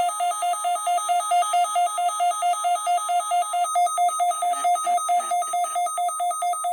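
Weather alert radio receiver sounding its electronic alarm: a loud, buzzy two-tone warble that flips rapidly between a low and a high pitch, about four times a second. The receiver has been set off automatically by the NOAA Weather Radio weekly test.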